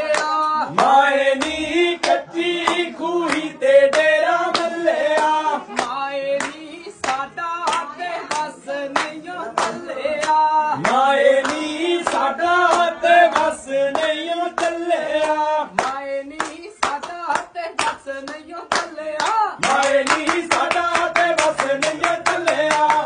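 Punjabi boliyan, folk couplets sung by one voice, with people clapping along in a steady rhythm. The clapping grows denser and louder near the end.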